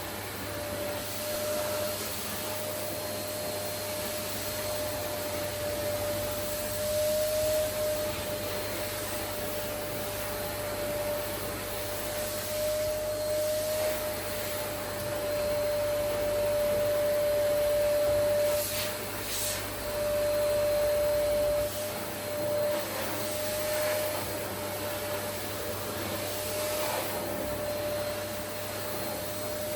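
Vacuum cleaner running, a steady motor whine over a rushing air hiss, its loudness swelling and easing several times.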